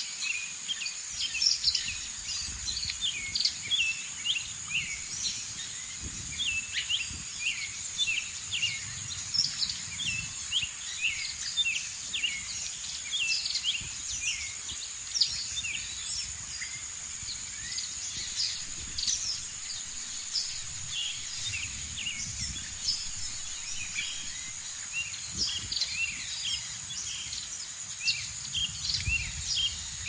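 Many birds chirping and singing in a dense chorus of short, quick calls over a steady high-pitched insect drone, with a low uneven rumble underneath.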